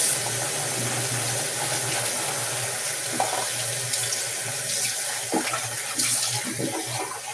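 Bathroom sink faucet running steadily into the basin, with a few small splashes and knocks as things are rinsed under it.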